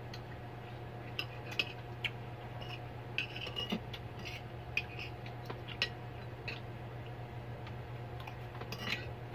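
Spoons and forks clinking and scraping on plates during a meal: scattered, irregular light clinks. A steady low hum runs underneath.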